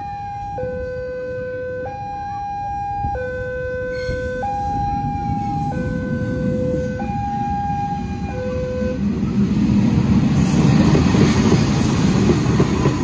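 Two-tone electronic siren alternating steadily between a low and a high note, each held about a second and a quarter, stopping about nine seconds in. After it a louder rumbling noise swells up.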